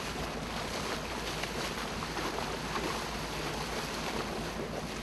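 Steady sound of a boat at sea: a low engine hum under water washing and splashing against the hull, with wind on the microphone.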